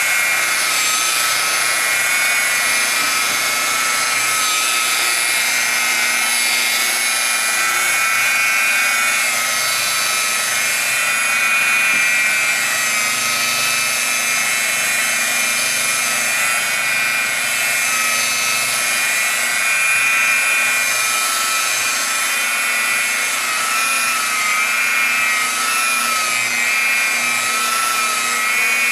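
Electric car buffer (polisher) running steadily against the painted hood, its motor whine wavering slightly in pitch as it is worked, while applying sealant.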